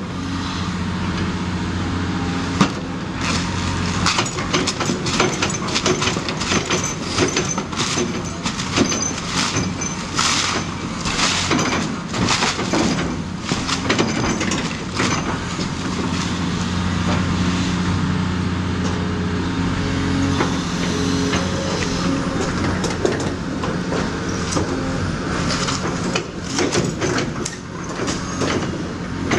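Caterpillar 336E hydraulic excavator's diesel engine running steadily under load while its sorting grapple pulls at a brick wall, with repeated crashes and clatter of falling masonry and rubble, heaviest about a third of the way in.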